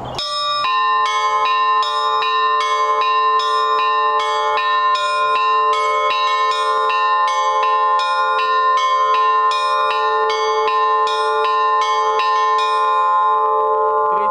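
Russian Orthodox church bells ringing a fast, repeating pattern on the middle bells, with semiquaver figures: quick, even strokes at about three a second over the steady hum of the larger bells. The quick strokes stop about a second before the end while the larger bells go on ringing.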